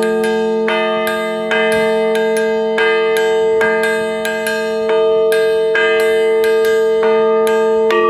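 Large bronze Time and Tide Bell struck by hand with a mallet about once a second, at slightly uneven intervals. Each strike adds a fresh attack over a held, many-toned ringing that never dies away between blows.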